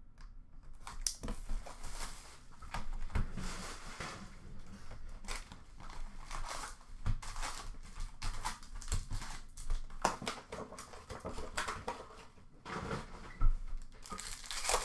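Plastic wrap and foil card-pack wrappers crinkling and tearing as a sealed hockey card box is opened and its packs are ripped open: irregular crackling throughout, with one sharp tear near the end.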